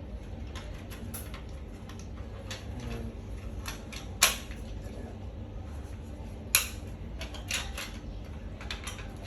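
Small metallic clicks and taps from a Leatherman multi-tool being handled, its folding tools swung open and shut. Two sharper clicks about four and six and a half seconds in stand out over a low steady background hum.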